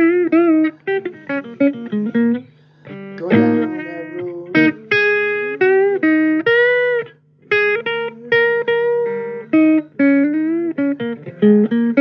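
Blues guitar playing single-note lead lines, with notes bent up in pitch and held with vibrato, over a steady low hum.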